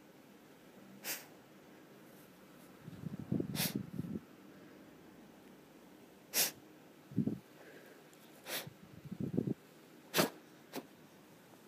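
Sleeping dachshund snoring. Several rough, rattling snores, the longest about three seconds in, alternate with short, sharp hissing breaths.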